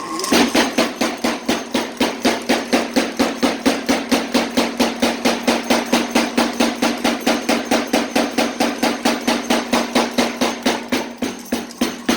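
A tire hammer (a homebuilt power hammer) running, its ram striking in a steady rhythm at about four blows a second, with a steady mechanical hum beneath the blows.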